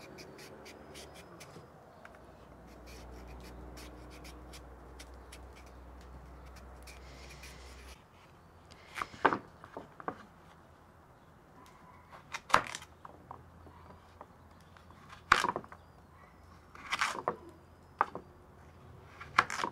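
Kitchen knife scraping the skin off a carrot in quick, light strokes. Then, from about nine seconds in, the knife chops the carrot on a wooden cutting board: sharp knocks, one every second or few seconds.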